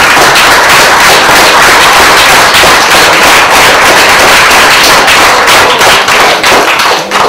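An audience applauding: loud, dense clapping from many hands, thinning out near the end.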